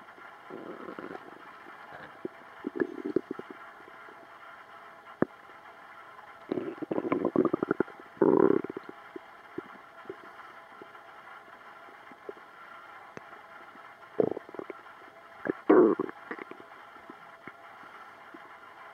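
A person's stomach gurgling and rumbling in irregular bursts: several short gurgles, with the longest a couple of seconds of rapid bubbling about a third of the way in.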